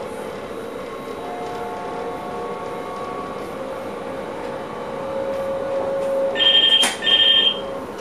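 Steady running noise and hum of a train heard inside the driver's cab, with faint steady tones. About six seconds in, the cab radio rings twice with short, loud two-pitch electronic tones: an incoming call to the driver.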